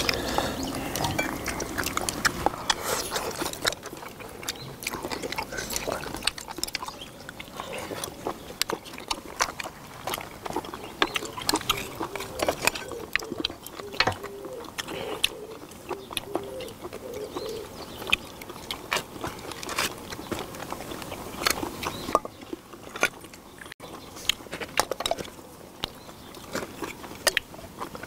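Close eating sounds: slurping and sucking at shellfish and stew, with frequent sharp clicks and clacks of sea-snail shells and chopsticks against each other and the cast-iron cauldron lid.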